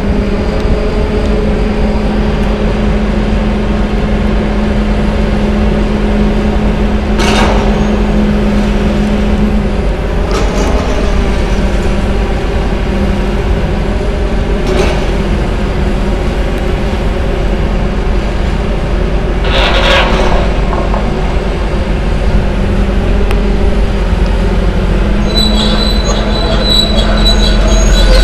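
Diesel engines of two tracked demolition excavators, one a John Deere, running steadily under load, with three short crashes of breaking debris about 7, 15 and 20 seconds in. Near the end a high-pitched metallic squealing sets in over the engine noise.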